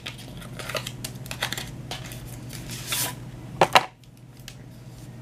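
Eyeshadow palette being handled and opened with long acrylic nails: scattered rustling and light taps, then two sharp clicks about three and a half seconds in.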